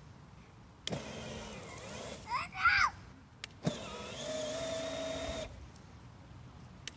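Electric drive motor of a battery-powered ride-on toy motorcycle whirring in two spurts, each switched on with a click: the first lasts about two seconds, the second is a steady whine of nearly two seconds. The toy is stuck in leaves, so the motor spins without getting the bike moving. A short, loud rising-and-falling high sound peaks in the middle of the first spurt.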